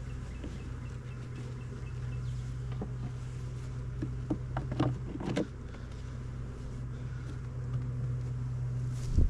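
Honeybees buzzing in a steady hum around an open hive, with a few sharp knocks of wooden hive parts about four to five seconds in.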